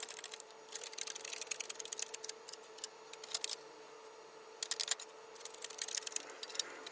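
Irregular light clicks and taps coming in quick clusters, over a faint steady hum.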